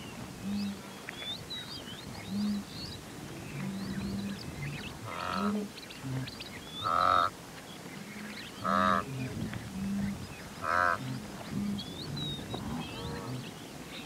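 A herd of blue wildebeest calling: many short, low grunts overlapping throughout, and from about five seconds in, louder nasal honking calls roughly every two seconds. Larks and other birds chirp high above, mostly near the start and again near the end.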